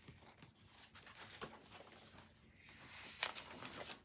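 Paper pages of a picture book being turned by hand: faint rustling that grows into a louder page flip with a sharp crackle near the end.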